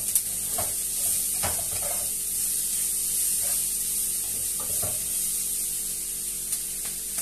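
Chicken, mushrooms and sliced vegetables sizzling steadily in a frying pan, with a few soft knocks and scrapes of a wooden spatula stirring them in the first few seconds.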